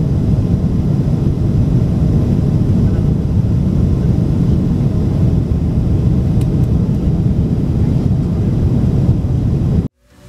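Steady low roar of a jet airliner cabin while descending on approach: engine and airflow noise heard from a window seat over the wing. It cuts off suddenly near the end.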